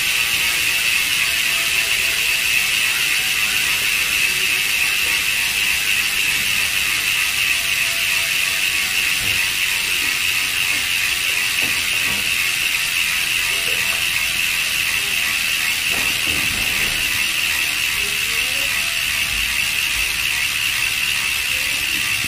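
Raze freehub on a Thrill Vanquish Elite rear wheel freewheeling on a stand: its pawls click so fast that the ratcheting merges into a steady buzz.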